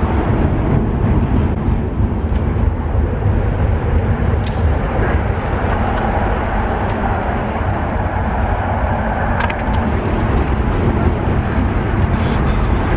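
Steady rumble of highway traffic on the bridge overhead, with a few faint clicks in the last few seconds.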